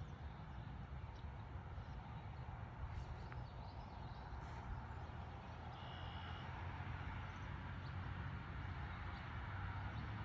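1995 Pontiac Firebird's engine heard at a distance as a low rumble, growing slowly louder as the car approaches.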